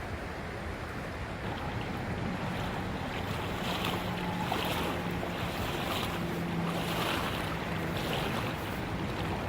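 Steady rush of flowing creek water, with wind buffeting the phone's microphone.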